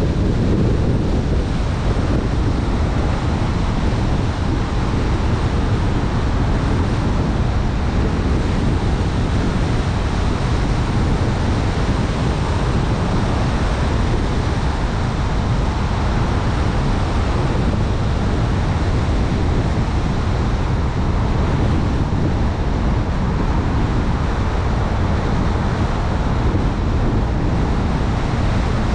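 Steady wind buffeting the microphone: a dense low rumble with a fainter hiss above it.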